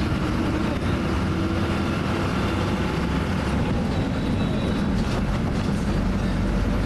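Steady engine drone and road noise heard from inside a moving city bus.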